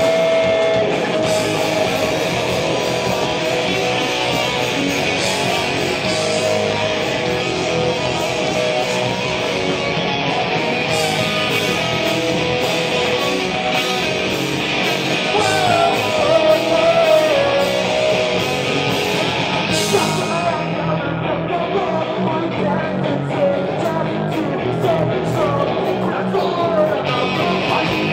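Rock band playing a song with distorted electric guitars, bass and drums, with some singing. The bright cymbal wash drops away about twenty seconds in and comes back near the end.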